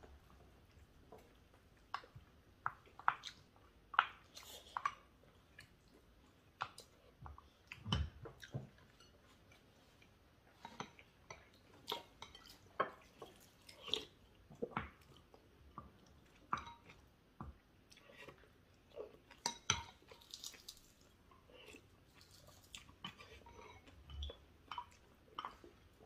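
Quiet eating sounds: chewing, with chopsticks and spoons clicking, tapping and scraping against ceramic bowls and plates in scattered, irregular strokes.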